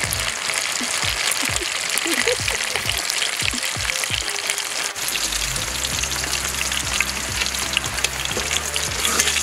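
Fish pieces frying in hot oil in a pan: a steady sizzle full of fine crackles and pops. Background music with low sustained notes comes in about halfway through.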